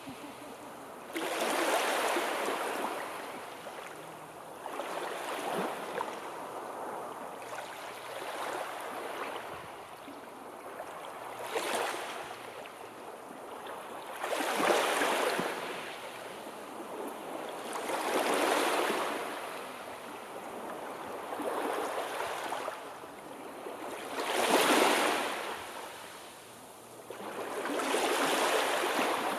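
Sea waves breaking and washing on the shore, the surf swelling and falling away every three to four seconds.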